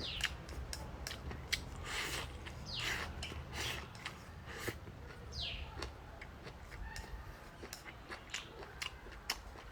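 Someone eating: chewing crunchy pickled long beans, with many sharp scattered clicks of utensils on a bowl. A bird gives a few short, falling chirps.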